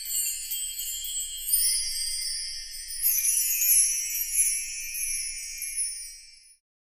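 High, bell-like tinkling in several layers at once, shimmering on and then fading out near the end.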